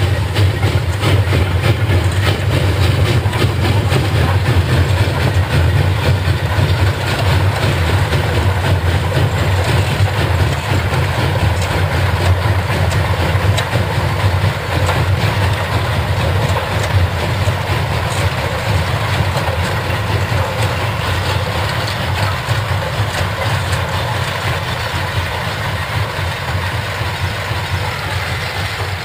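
Small narrow-gauge Orenstein & Koppel 0-8-0 tank steam locomotive working a train of empty cane wagons, giving a steady run of exhaust and rail noise that slowly gets quieter as it draws away.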